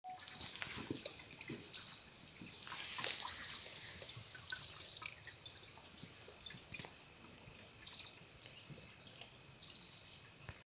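Natural ambience in a rocky ravine: a steady high-pitched insect-like buzz, with short bird chirps every second or two and faint scattered footsteps on stones.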